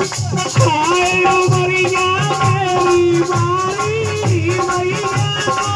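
Live Hindi folk song: a male singer holds a long, slightly wavering note into a microphone over a steady percussion beat with a shaken rattle.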